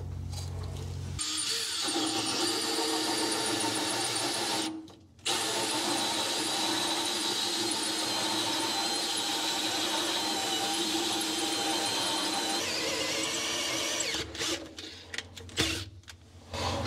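Cordless drill running a large hole saw through thick fiberglass. It runs steadily under load, stops briefly about five seconds in, then runs on, and near the end it stops and starts in short spurts.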